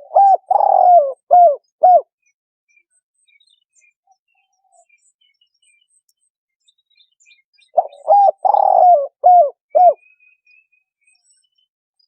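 Spotted dove cooing: two phrases, one at the start and one about eight seconds in, each a run of about five low coo notes with a longer falling note in the middle. Faint high chirps of small birds in between.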